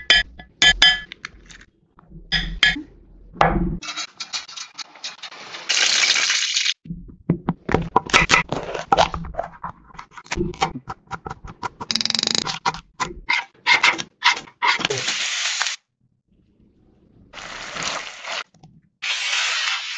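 Close-miked kitchen sounds of food being handled and cooked: many quick taps, clicks and scrapes, broken by several short hissing stretches of about a second each.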